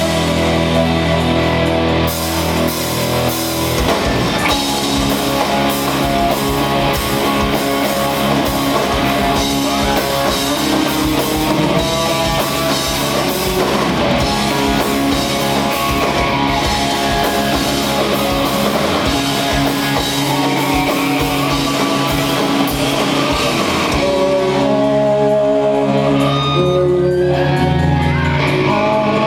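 Rock band playing live on electric guitars over a drum kit beat. About 24 seconds in the drums drop out, leaving held chords ringing.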